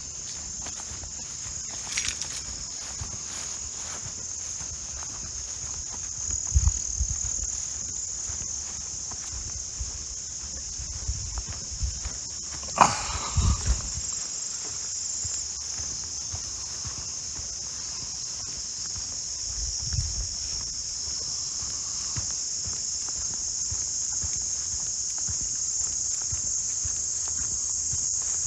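Steady, high-pitched chorus of insects trilling, with a few brief low thumps and a sharp click about thirteen seconds in.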